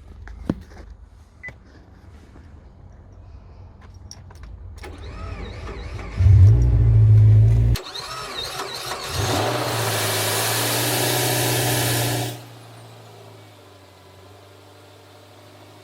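Subaru Legacy B4 starting for the first time after standing about three months: a couple of clicks, then the engine turns over and fires in two loud stretches, each ending abruptly. It catches without any knocking.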